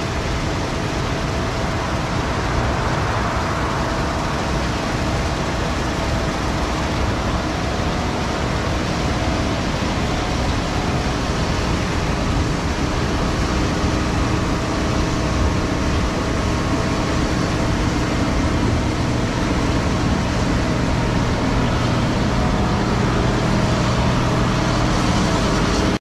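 Case IH Axial-Flow combine harvester running steadily while cutting soybeans, an even engine and machinery sound that slowly grows louder.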